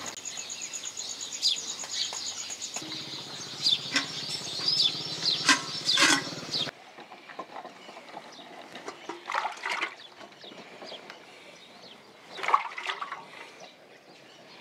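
Birds chirping, with a high rapid trill at the start. After a sudden cut, irregular slurping and splashing of water as a water buffalo drinks from a tub, loudest about two thirds of the way in.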